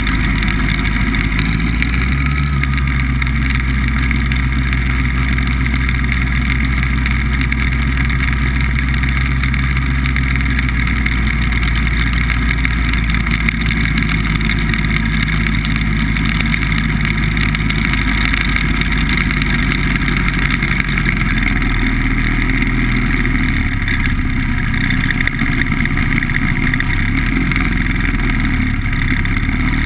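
BBV2+2 hovercraft's engine and fan running steadily under way. The engine note shifts slightly about two seconds in and again a little past twenty seconds.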